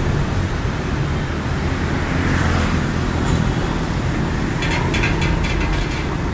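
Street traffic: motorbikes and cars running as they pass, a steady low engine hum over road noise, swelling as one vehicle goes by about two seconds in. A few sharp clicks come near the end.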